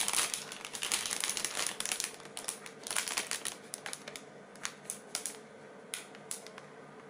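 Clear plastic bag of model-kit runners crinkling as it is handled: dense crackling at first, thinning after about three seconds to scattered crackles.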